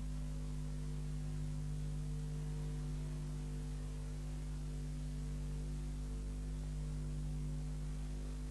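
Steady electrical hum with several pitched tones under a faint hiss: the playback noise of a blank stretch of videotape.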